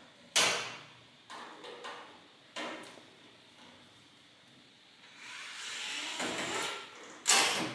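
Clicks and knocks of small plastic and metal parts being handled while an 8-track tape player is taken apart: a sharp knock about half a second in, two softer ones after it, a longer scraping rustle past the middle, and another sharp knock near the end.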